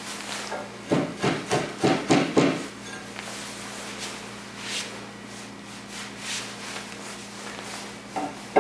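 Chisel paring shavings off the rough face of a green, wet white-pine tenon: a quick run of about six scraping strokes starting about a second in, then a few lighter, spaced strokes.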